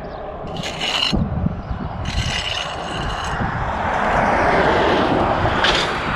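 Scraping and rubbing sounds come in several bursts over a steady low rumble. The scraping swells loudest around four to five seconds in.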